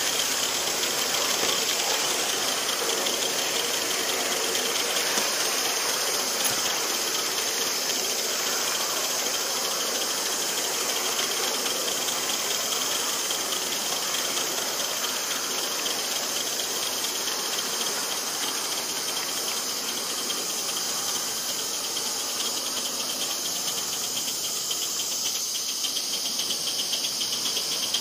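2.5-inch gauge LBSC 'Ayesha' live steam locomotive running along the track, heard close up: a steady, rapid chuffing rattle of exhaust beats and wheels on the rails, easing a little about three quarters of the way through.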